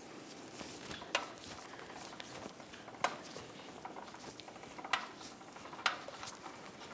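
Sharp metallic clicks and clinks from a strut spring compressor as the rear strut's coil spring is being compressed, four louder clicks a second or two apart with smaller ticks between.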